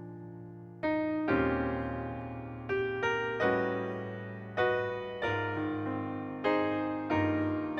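Slow piano music: chords struck about once a second, each left to ring and fade, with no singing.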